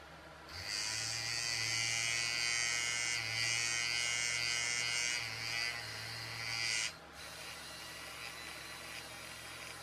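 Small electric motor running with the propeller shaft freshly soldered onto its own shaft, test-spun to see whether the joined shaft turns true. A steady high buzzing whine starts about half a second in, dips slightly near the end, and cuts off suddenly after about six seconds.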